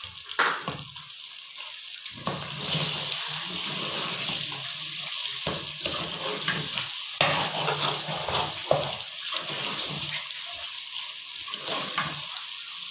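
Chicken and cream sizzling in hot oil in a steel pot, with a steel spoon stirring and scraping around the pot.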